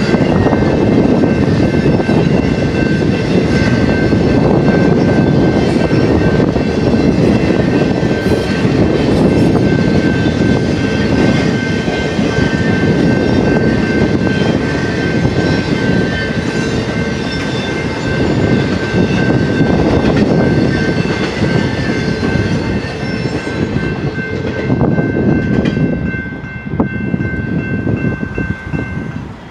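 BNSF intermodal freight train of trailer-loaded spine cars rolling past at a grade crossing, a steady rumble of wheels on rail, while the crossing's warning bell rings on a steady tone. The last car passes about three-quarters of the way through and the rumble drops away, and the bell stops just before the end.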